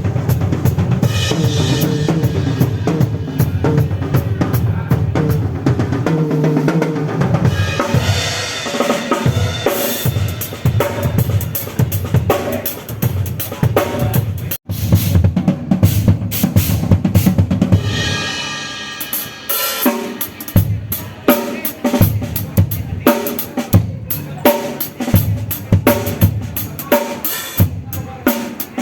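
Drum kit playing in a piece of music, with bass drum, snare and cymbal hits over sustained pitched instruments. The sound breaks off for an instant about halfway, and the drum hits stand out more sharply in the later part.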